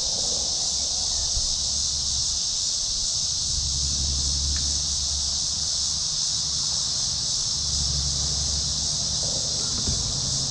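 A steady, high-pitched chorus of insects, with a low hum underneath that swells twice.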